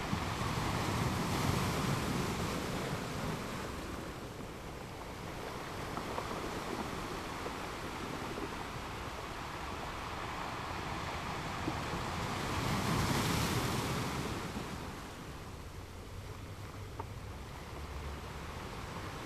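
Ocean waves washing ashore, a steady surf that swells twice, about two seconds in and again near the end, then eases back.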